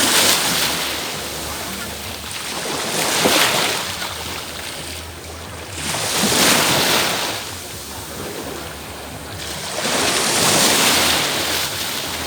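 Sea waves breaking on the beach, the noise of surf swelling and falling away four times, about every three to four seconds.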